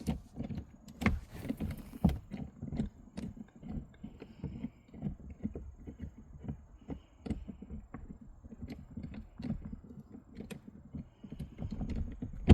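Hand ratchet clicking in short, uneven strokes as a bolt is worked loose, with light knocks of the tool and parts.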